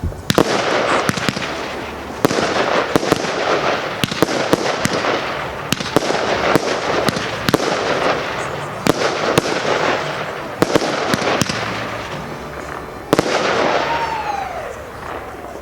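Consumer firework cake barrage firing: a rapid series of sharp bangs from shells bursting overhead, with dense crackling between the reports. A brief falling tone sounds near the end.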